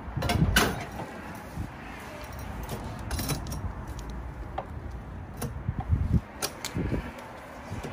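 Scattered metallic clicks and clunks as an LPG filling nozzle and hose are handled and fitted onto the car's screw-on filler adapter, with a few heavier knocks in the second half.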